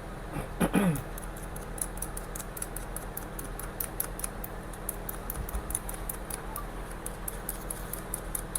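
Rapid, irregular, faint high ticking, several ticks a second, over a steady electrical hum. A brief low vocal sound comes about half a second in.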